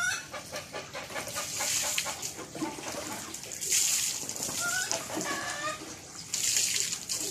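Pigeons bathing in shallow water trays: splashing and wing flutters, loudest in a short burst about halfway through and again near the end. Short clucking calls from fowl come in near the start and about five seconds in.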